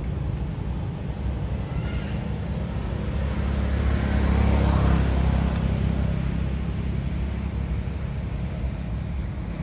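Low steady rumble that swells to its loudest about halfway through and then fades away.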